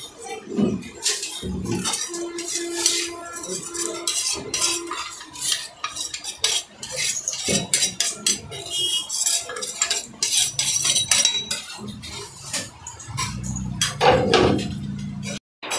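A steel spoon scraping and clinking against a terracotta bowl and the rim of a steel pot as curd is scraped out into the pot: a run of short scrapes and knocks.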